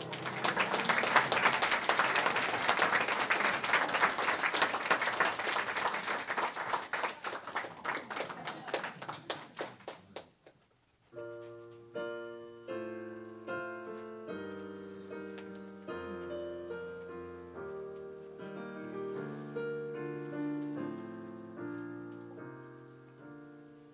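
An audience applauds for about ten seconds and the clapping fades out. After a brief pause, a piano starts playing single notes and chords.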